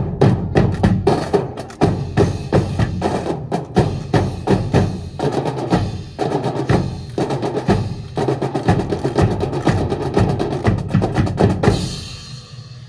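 Marching drums playing a fast, dense rhythm of sharp strokes, which stops near the end and leaves a ringing crash dying away.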